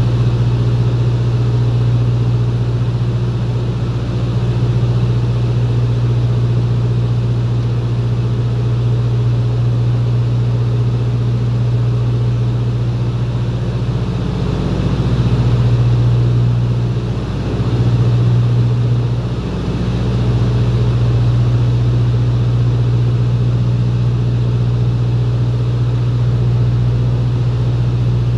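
Twin Beech 18's two radial engines and propellers droning steadily, heard inside the cockpit on approach. The drone wavers and dips briefly about two thirds of the way through.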